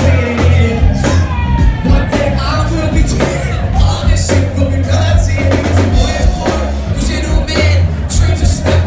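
Live band playing a song: drum kit and bass with a singing voice over it.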